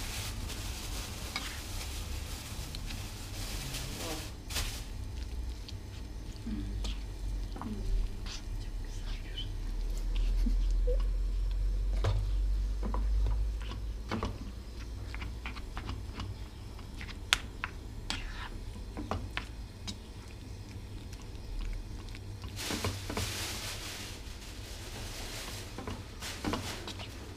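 Plastic spatula stirring and scraping cubed kalot cheese and butter as they melt in a nonstick frying pan for mıhlama, with scattered light clicks of the spatula on the pan and a soft sizzle at times. A low rumble is heard for a few seconds near the middle.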